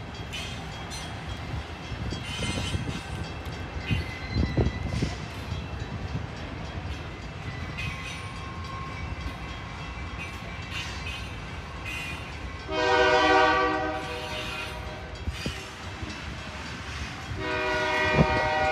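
Diesel locomotive air horn sounding two blasts over the rumble and clatter of a train on the rails. The first blast comes past the middle and the second, longer one near the end.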